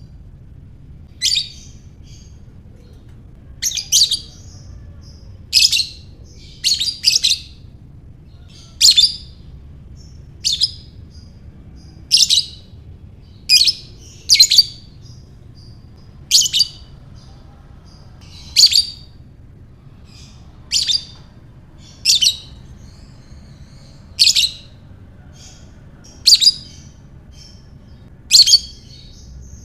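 Lovebird giving short, shrill chirps one at a time, about one every one to two seconds, some in quick pairs, over a faint low hum.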